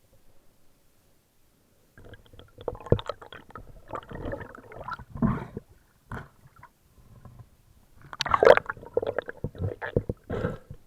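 Water gurgling and sloshing in irregular bursts, starting about two seconds in, as heard during spearfishing in the water.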